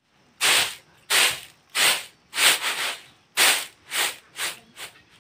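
Uncooked rice grains swishing and rattling in about eight short, even strokes, a little under a second apart.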